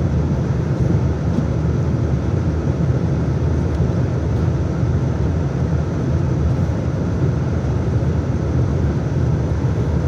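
Steady low rumble and air noise inside the cabin of an Embraer 195-E2 airliner before departure, even throughout with no distinct events.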